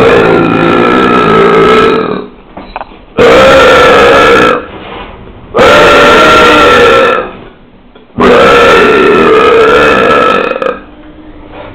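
Human burps: four long, loud belches in a row, each held for about one and a half to two and a half seconds on a fairly steady pitch, with short pauses between them.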